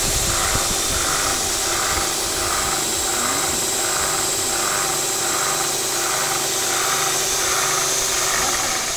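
Weldinger belt grinder running with no workpiece: its electric motor drives the grinding belt with a steady hum and whir, and a regular pulse about one and a half times a second.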